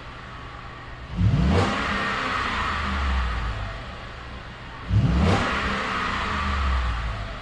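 2013 Ford F-150 engine on its stock exhaust, revved twice from idle shortly after a cold start. Each rev climbs quickly, about a second in and again about five seconds in, then falls back.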